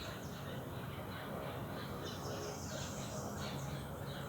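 Outdoor ambience of several birds chirping and calling in short, repeated notes, over a low steady hum.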